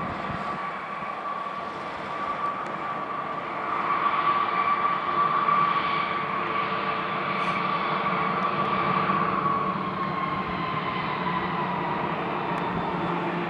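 Jet airliner's engines whining at taxi power, a steady high tone over a rushing hiss. It grows louder about four seconds in, then the tone slowly drops in pitch toward the end.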